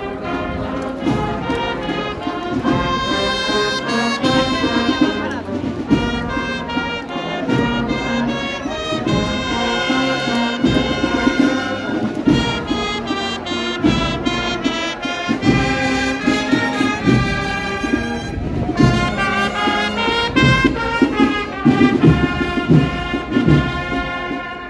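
A processional brass band (agrupación musical) playing a melodic march, with trumpets and trombones carrying the tune in sustained, changing notes.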